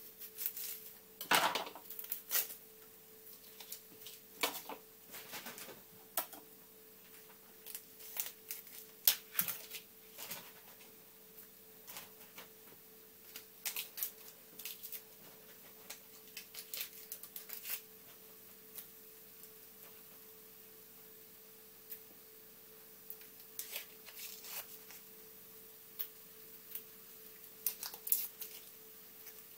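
Irregular light clicks and knocks of a small kitchen knife and hands working a red onion, trimming and peeling off its skin, over a steady faint hum.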